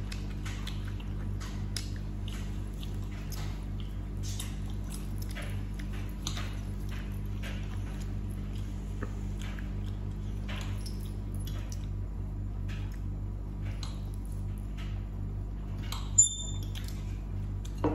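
Eating sounds at a dinner table: scattered small clicks and scrapes of cutlery on plates and chewing over a steady low hum, with one sharp ringing clink about sixteen seconds in.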